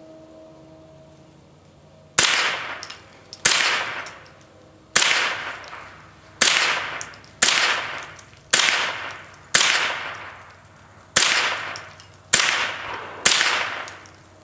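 Ten shots from a semi-automatic Winchester Model 63 .22 LR rifle (a Miroku-made copy), fired at a steady pace about a second to a second and a half apart after a short quiet start. Each crack is followed by a tail that dies away.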